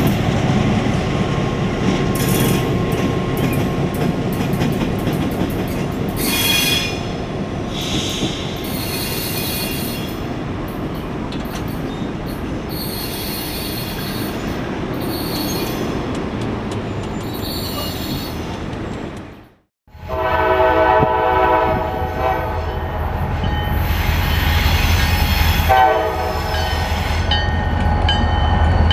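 A lone CSX diesel locomotive with no cars rolls past, its engine rumbling and its wheels squealing on and off. After a sudden cut, another diesel locomotive's engine runs low and steady and its horn sounds one long blast, then a short one a few seconds later.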